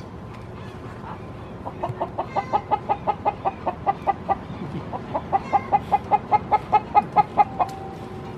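Domestic hen clucking rapidly in two quick runs of about a dozen clucks each, then one long held note near the end.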